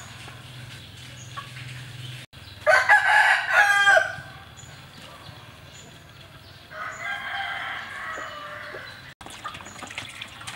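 A rooster crowing loudly about two and a half seconds in, then a second, fainter crow a few seconds later.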